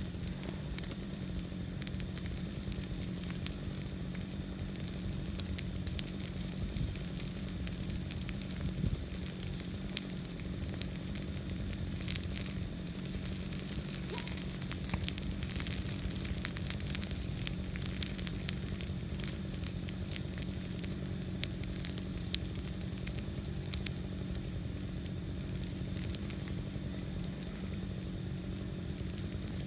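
Brush pile of green interior live oak branches burning: a steady sizzling hiss with many sharp crackles and pops scattered throughout as the fresh leaves and wood burn. A steady low hum runs underneath.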